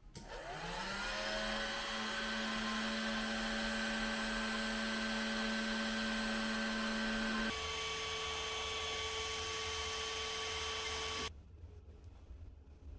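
Heat gun switched on, its fan spinning up over a second or so, then running steadily while heating acrylic hard tubing to soften it for bending. Its note changes abruptly about seven and a half seconds in, and it is switched off about four seconds later.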